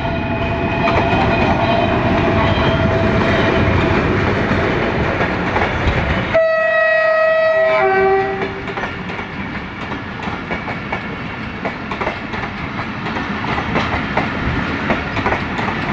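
Pakistan Railways diesel-electric locomotive GRU-5024 running past, then its multi-note air horn sounding for about two seconds about six seconds in, the chord dropping to a lower note at the end. After the horn the passenger coaches roll by, their wheels clicking over the rail joints.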